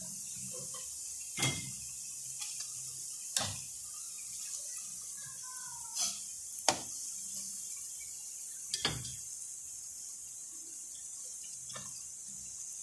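Corn fries deep-frying in hot oil, a steady sizzle. About six sharp clinks of cookware are spread through it.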